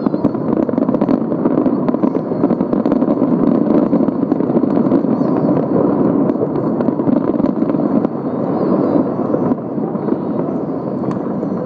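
Fireworks display going off in quick succession: an unbroken wash of crackles and bangs, easing slightly after about eight seconds.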